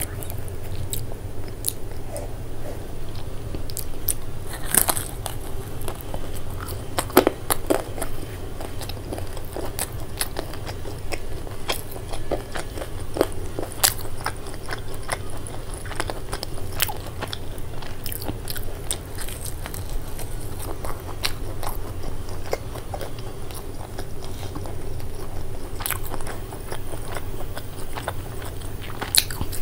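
Close-miked eating of crispy fried momos: irregular crunching bites and chewing, with wet mouth clicks.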